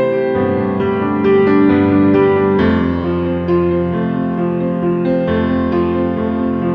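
Background piano music, a slow melody of held notes over changing chords.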